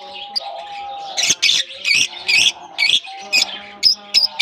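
A flock of lovebirds chattering with rapid, shrill squawks and chirps, several calls a second overlapping.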